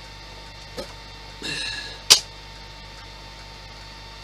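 Parts of a model Spitfire kit being handled: a light click about a second in, a short scraping rustle, then a sharp click just after two seconds, the loudest sound, over a steady electrical hum.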